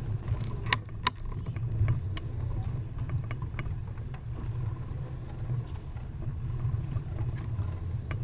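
Steady low wind rumble on the microphone while riding a bicycle across brick paving, with a few sharp clicks and rattles, two of them close together about a second in.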